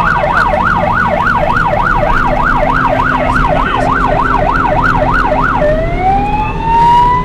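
Emergency-vehicle siren in fast yelp mode, sweeping up and down about four times a second. About five and a half seconds in it switches to a slow rising wail.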